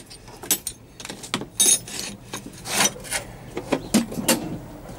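A set of steel open-end spanners clinking and jangling together as they are gathered up by hand: a string of irregular sharp metallic clinks.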